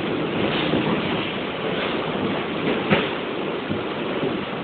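New York City subway train heard from inside the car, a steady loud roar of steel wheels on rail in the tunnel. Brief clanks come through, the sharpest about three seconds in.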